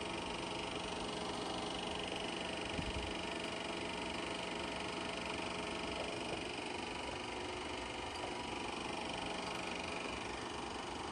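Eumig Mark S 802 Super 8 film projector running: a steady hum of its motor and cooling fan with the film transport going, and a small knock about three seconds in.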